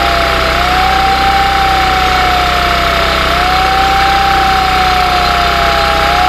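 Heavy machinery running steadily, with a whine that slowly drops in pitch and jumps back up about every three seconds.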